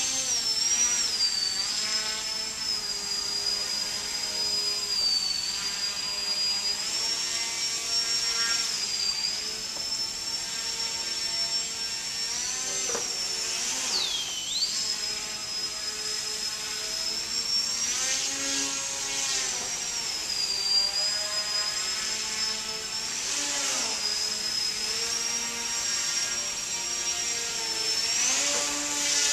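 Small electric motor and propeller of an indoor RC foam plane whining, the high pitch wavering up and down with the throttle. The pitch drops sharply about halfway through, then climbs back.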